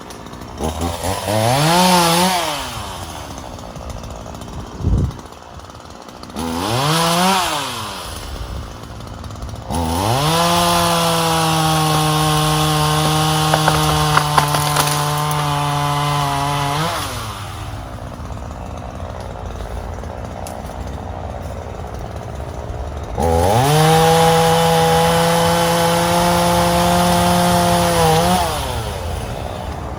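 Ryobi 37cc two-stroke gas chainsaw revved twice briefly, then held at full throttle for about seven seconds, which is typical of cutting into a tree. It drops back to idle, then runs at full throttle again for about five seconds before easing off. There is a sharp knock about five seconds in.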